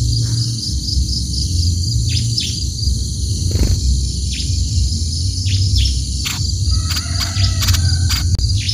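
A steady high insect drone with short, falling bird chirps scattered through it, several in quick succession near the end, over a steady low rumble.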